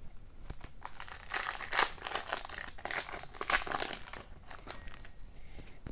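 Foil wrapper of a hockey trading card pack crinkling as it is torn open by hand. A dense crackle lasts about three seconds, then a few light rustles and clicks follow.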